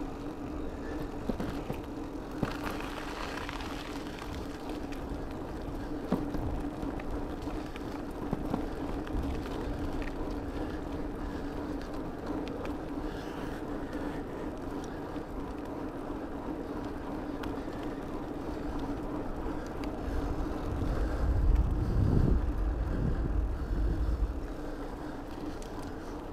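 Bicycle riding over rough, cracked asphalt: tyres rolling with a steady hum and small knocks and rattles from the bumps. Wind buffets the microphone for a few seconds about twenty seconds in.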